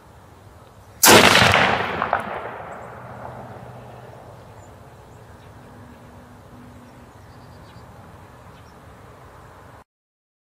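A single loud gunshot from a deer hunter's firearm about a second in, its report rolling away over the next few seconds, with a fainter sharp crack about a second after the shot.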